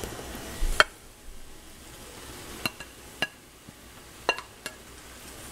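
A fork clinking and scraping against a frying pan while stirring noodles, about half a dozen sharp clinks spread out, the loudest about a second in.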